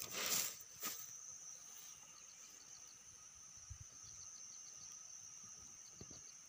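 Faint open-field ambience: a steady high insect drone, with three short runs of quick high chirps about two seconds apart. A few brief rustles come in the first second.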